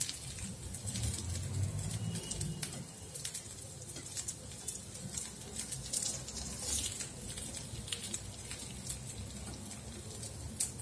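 Koftas crackling lightly in a little hot oil in an appam pan, scattered small pops throughout, with occasional taps and scrapes of a metal spoon against the pan as they are turned.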